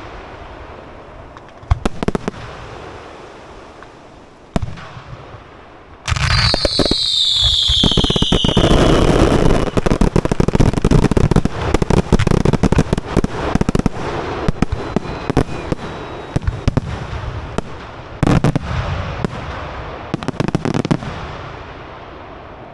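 Aerial fireworks going off: a few separate bangs, then about six seconds in a loud burst with a falling whistle and a long stretch of dense crackling and booming that slowly dies away.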